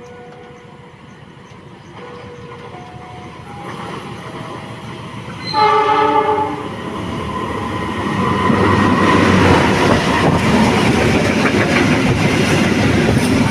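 A diesel train sounds its horn once in a short blast of about a second. The train then passes close by, its engine rumble and wheel clatter on the rails building up and staying loud.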